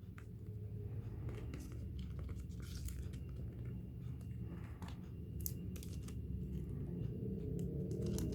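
Plastic and paper packaging being handled, torn and crinkled in scattered short crackles and clicks while merchandise is unwrapped, over a steady low hum.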